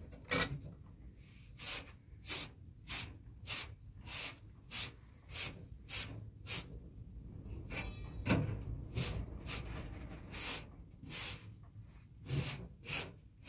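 Rhythmic scraping or rubbing strokes of a hand tool worked back and forth, about one every half second or so, with a short rattle about eight seconds in.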